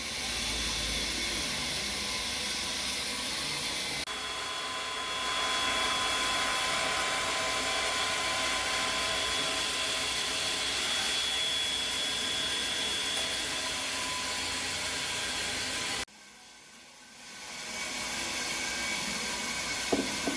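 Electric drill running a homemade wood lathe, a steady motor whine mixed with the rasp of wood being turned. The sound breaks off abruptly about four seconds in and again about three-quarters through, then builds back up as the drill spins up.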